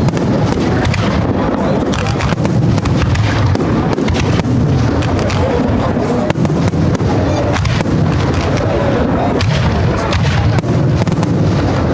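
Spanish professional display fireworks going off in a dense barrage: comets launching and aerial shells bursting, with many sharp bangs and crackles close together over a continuous low rumble.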